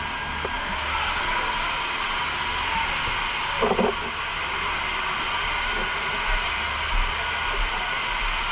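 A steady hissing rush with no words over it, and a brief short sound about three and a half seconds in.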